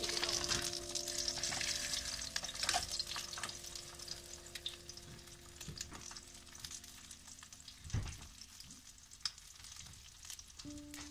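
An egg frying in hot oil in a pan, sizzling, with scrapes and clicks of a wooden spatula against the pan. The sizzle thins out after the first few seconds, and there is a single knock about eight seconds in.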